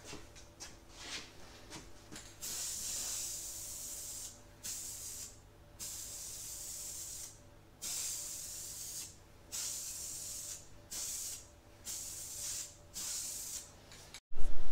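Aerosol spray paint can spraying black paint in a run of hissing bursts, about eight passes of half a second to two seconds each with short gaps between, after a few short spits in the first two seconds.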